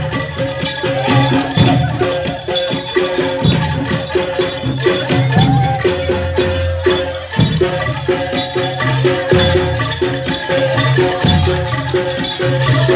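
Jaranan gamelan music: drums and struck metal keys play a steady, busy rhythm over a held tone, with the jingle of shaken bells.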